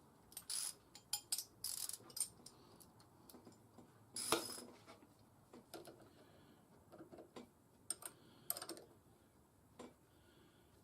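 Irregular light clicks and clinks of metal tools and small parts being handled. There are several short clattery bursts in the first two seconds, a louder ringing clank about four seconds in, and a few more clicks near the end.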